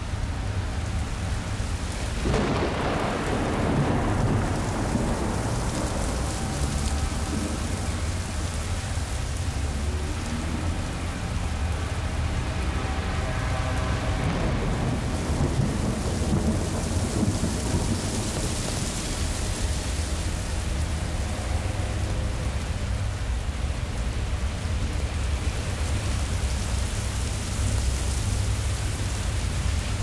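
Thunderstorm: steady rain over a continuous deep rumble. A clap of thunder breaks about two seconds in and rolls away over several seconds, and a second long roll of thunder comes around the middle. Gusts of wind swell and fade later on.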